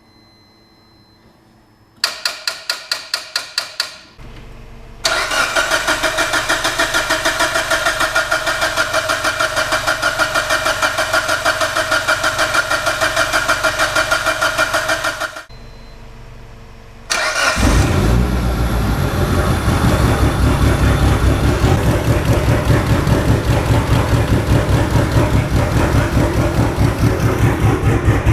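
Mitsubishi Lancer Evolution VIII's turbocharged 4G63 four-cylinder cranked on the starter for about two seconds, then running steadily. After a short break it runs again, louder and deeper with a rapid, even exhaust pulse.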